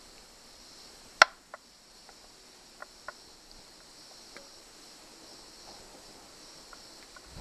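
A sharp metallic click about a second in, then a few lighter clicks and taps, as the compression tester's hose fitting is handled and connected at the spark plug hole. A steady high insect chirring runs underneath.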